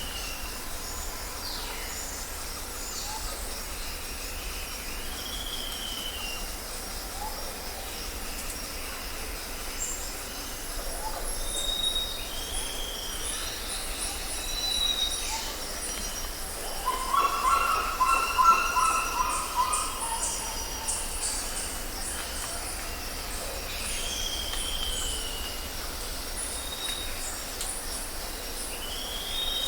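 South American rainforest ambience: a steady chorus of insects with a high, pulsing hiss, over repeated short whistled bird calls that slur downward. A louder call with several tones stands out from about 17 to 20 seconds in.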